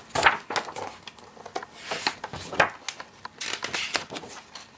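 Pages of a large art book being turned and handled: several papery swishes with small taps and rustles as the pages slide and fall.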